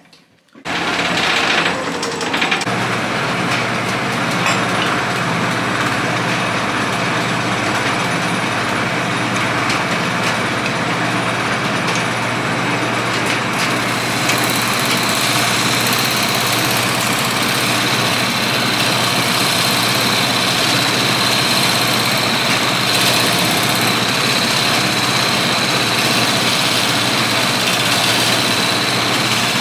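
Wood lathe starting up about half a second in and running steadily with a low motor hum while a turning tool cuts the spinning burl bowl blank. A steady high whine joins about halfway through.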